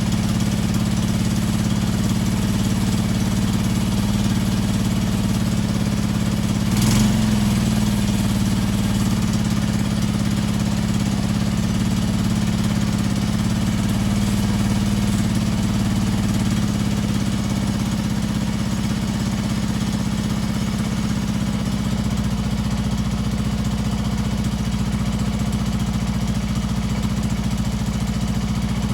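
Honda TLR200's single-cylinder four-stroke engine running steadily, with one brief blip of the throttle about a quarter of the way through.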